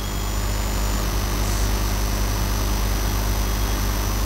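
Steady low hum with an even hiss and faint thin high-pitched whines over it, swelling slightly in the first second.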